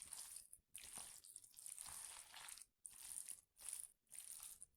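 Faint wet squishing and scraping of a spoon stirring sauce-coated fusilli pasta with shrimps and diced bacon, in a series of short strokes that start and stop.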